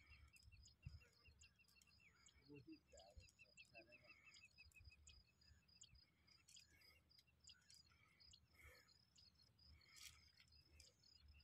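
Near silence: faint outdoor ambience with rapid, evenly spaced high-pitched chirping, like birds or insects, and a few faint soft clicks.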